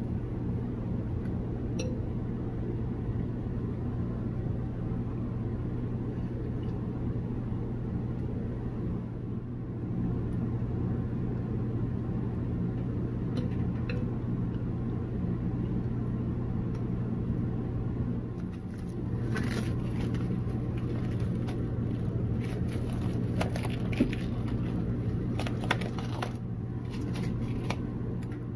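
A steady low mechanical hum, with crackling and scattered light clicks starting about two-thirds of the way through.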